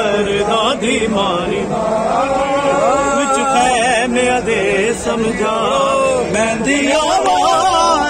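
Voices chanting a melodic recitation, with several voice lines overlapping and no break; the kind of chant sung as a Muharram mourning noha.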